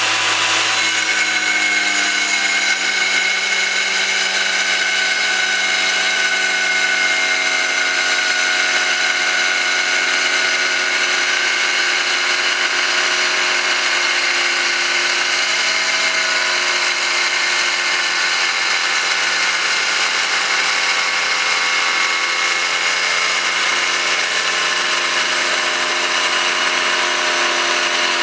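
Tile saw running steadily as its blade slices lengthwise through a native silver nugget. It makes a constant whine of several steady tones whose pitches drift slightly, over a high hiss.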